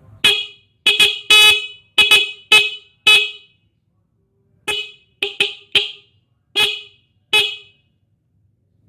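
A stock Honda New Megapro motorcycle horn, taken off the bike and powered by a laptop charger, sounding in about a dozen short beeps, with a pause of about a second midway. Very loud and sharp, with no broken or rasping tone: the horn still works properly.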